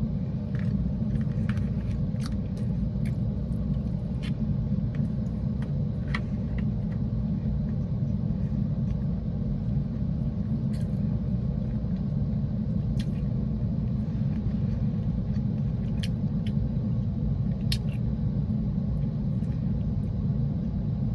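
Steady low rumble of a parked car's idling engine and cabin, heard from inside the car, with scattered faint clicks and rustles of eating and handling food.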